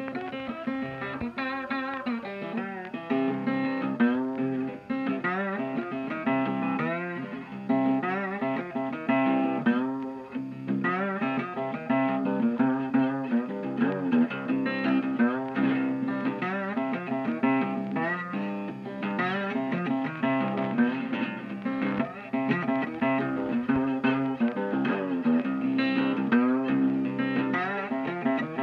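Background music: a blues guitar tune with picked notes that bend in pitch over a steady low accompaniment.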